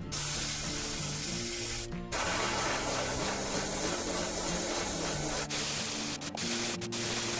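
Gravity-feed airbrush spraying paint onto a lure: a steady hiss of air and paint, cut off briefly about two seconds in and broken into short bursts near the end.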